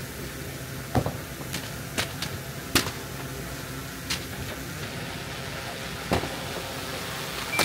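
Fireworks going off in scattered sharp bangs, about seven at irregular intervals, over a steady background rumble, with a short high whistle near the end.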